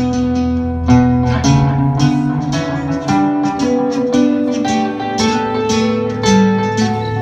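Live acoustic band music: acoustic guitar picking and strumming a rapid run of notes in an instrumental passage.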